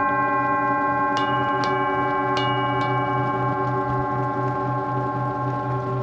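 Singing bowls ringing with many overlapping sustained tones and a low hum that pulses slowly. About four light strikes between one and three seconds in add brighter ringing tones on top.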